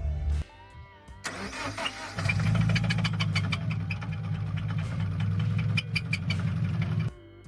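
Car engine cranking and starting, then running steadily with repeated sharp clicks over it, cutting off near the end.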